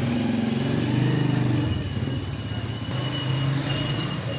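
A motor engine running steadily, its low hum shifting slightly in pitch, with a thin high whine joining in partway through.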